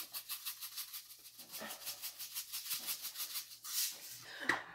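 Sesame seeds shaken out of a container onto a salad: a fast, even rattle of about eight shakes a second that stops about three and a half seconds in.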